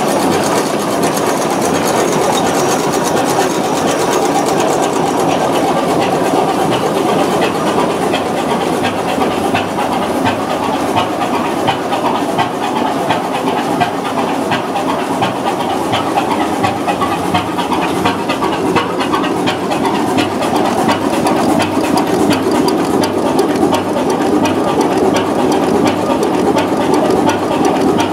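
Large multi-cylinder Körting U-boat diesel engine with air-blast fuel injection running steadily, its valve gear giving a fast, even clatter of ticks.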